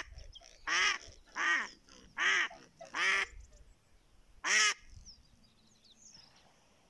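Live decoy duck, a domestic mallard-type hen, quacking loudly in a series of separate calls about a second apart, the last after a short pause. Faint small-bird chirps follow near the end.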